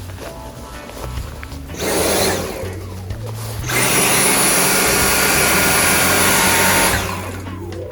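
Dyson cordless stick vacuum switched on in a short burst, then again for about three seconds of steady running with a high whine. It is then switched off, its motor winding down with a falling whine near the end.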